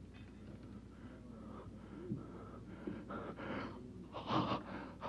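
A man gasping and breathing hard in the grip of sudden pain, short noisy gasps that grow louder over the last two seconds. The pain is an attack of renal colic.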